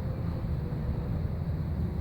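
Steady low rumbling background noise with no voice, and a faint thin tone above it.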